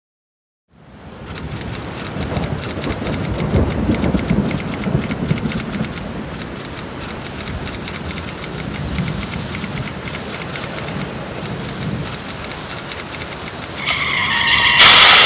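Car driving in heavy rain, with steady rain noise over a low road rumble. Near the end, tyres screech loudly into a skid.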